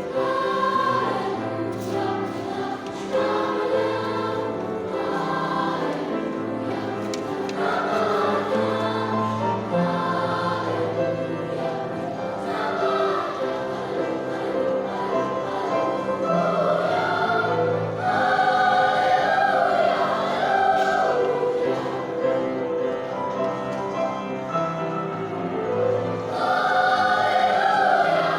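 Children's Sunday school choir singing in parts, with sustained, unbroken sung notes.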